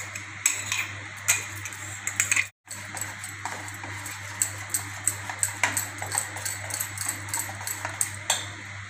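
Pakora batter being mixed by hand in a stainless steel bowl, with many small clicks and clinks of steel against steel, over a steady low hum. The sound breaks off briefly about two and a half seconds in.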